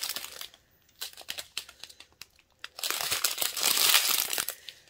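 Small clear plastic bags of square diamond-painting drills crinkling as they are handled and flipped through, with scattered sharp ticks. The crinkling is brief at first, sparse in the middle, and loudest and densest from about three seconds in until just before the end.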